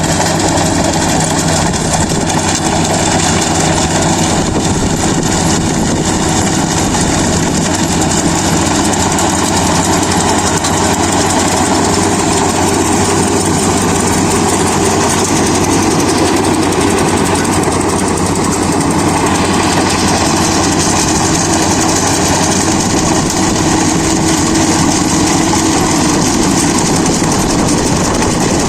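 Kubota DC-35 rice combine harvester running steadily, its diesel engine and machinery making a loud, continuous mechanical noise.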